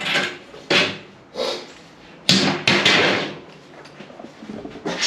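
Irregular metal knocks, about seven over a few seconds, each with a short ring: a steel Z bar being knocked and worked into position against the floor pan.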